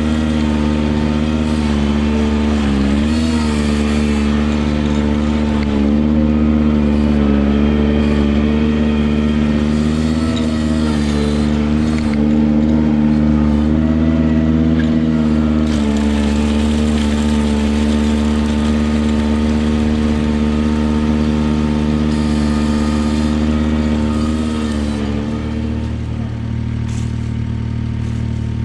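Ventrac 4500Z compact tractor engine running steadily at working speed while driving a power rake through gravel. The engine note dips briefly a few times as it takes load.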